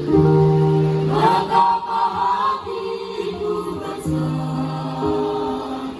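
A choir singing held chords that change every second or so, with a higher melody line gliding over them between about one and three seconds in.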